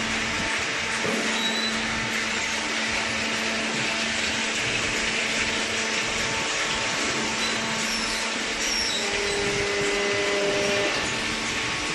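Hydraulic paper baler's motor and pump running steadily, a constant hum and hiss with a low droning tone; a higher tone joins briefly about nine seconds in.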